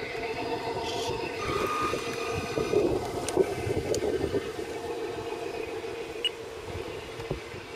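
Radio-controlled Broom 44 model boat running on the water: a steady mechanical hum with several held tones from its drive and onboard engine-sound unit, swelling slightly in the middle, with a few light clicks.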